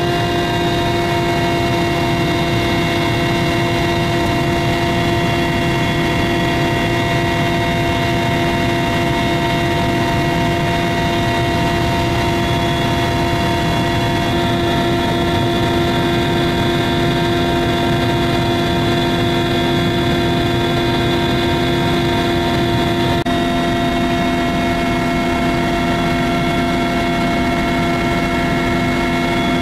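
Mi-171 helicopter's twin turboshaft engines and rotor running steadily: a loud, even drone with several steady whining tones, some of which shift slightly a little over twenty seconds in.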